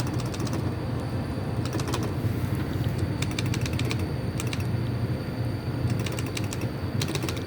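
Slot machine in play: bursts of rapid light clicking ticks over a steady low hum.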